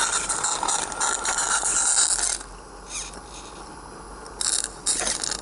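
G-scale model train running on track, with busy mechanical clicking and gear noise. It is dense for the first couple of seconds, then drops quieter, with a few short bursts near the end.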